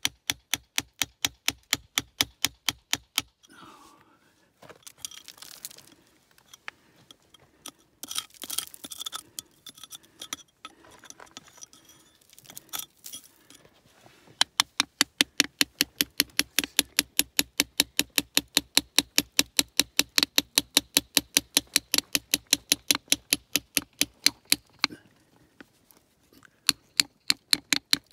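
A hammer drives a steel cold chisel into basalt in quick ringing taps, about four a second, working out natrolite crystals. The tapping stops after about three seconds. About ten seconds of quieter, irregular scraping and clatter follow. Then steady tapping resumes for about ten seconds, pauses briefly, and starts again near the end.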